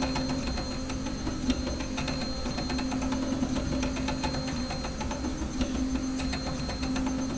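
3D printer running a print: its stepper motors give a steady low whine that breaks off and resumes a few times, over a faint low rumble and scattered light ticks.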